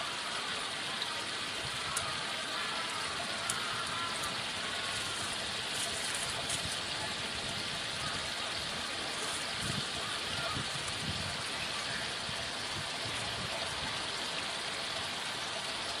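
Steady rushing of running water, like a stream or small waterfall, with a few faint ticks over it.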